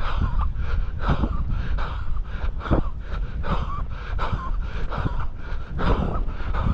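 A runner breathing hard, with gasping breaths, close to the microphone, over the thuds of footfalls. This is the laboured breathing of the last stretch of a 5 km run.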